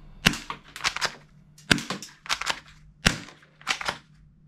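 Silver toy pistol firing a run of sharp clicking shots, about nine in all. The loudest come every second and a half or so, with softer clicks between them.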